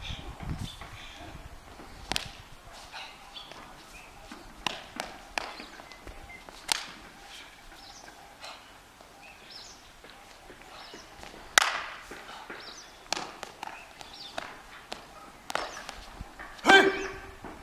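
Sharp slaps, snaps and stamps from a Shaolin fist form: hand strikes, clothing snapping and feet landing, one every second or so at uneven intervals. The loudest comes about two-thirds of the way through, and a short pitched sound follows near the end.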